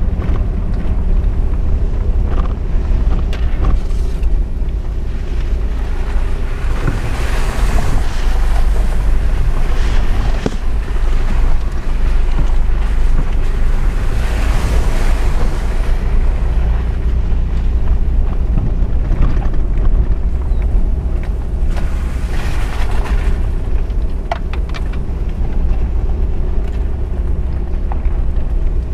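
Off-road 4x4 driving along a rutted dirt track: a steady low engine rumble with road noise. Rushing noise swells up several times, and a few sharp knocks come late on.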